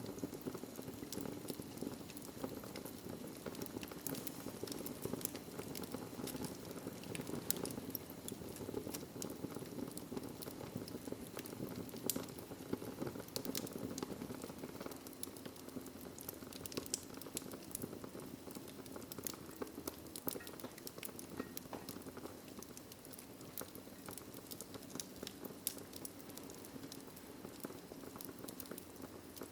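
Wood fire crackling in a fireplace: a steady hiss of burning with many small crackles and a few louder pops.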